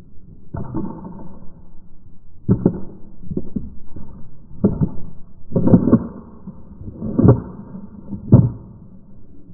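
Shotgun shells being pulled from a belt shell caddy and pushed by hand through the loading gate into the tube magazine: a series of about seven sharp clacks, roughly one a second.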